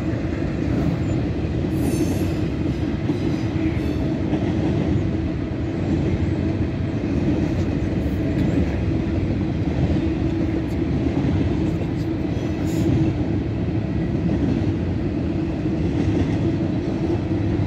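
CSX intermodal freight train's container-laden well cars rolling past, a steady rumble of wheels on rail with a few faint clicks.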